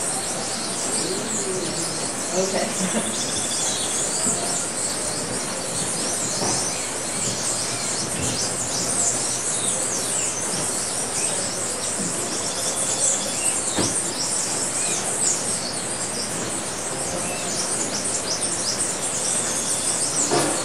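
Many birds chirping and calling at once: a dense stream of short, high chirps over a steady background hiss.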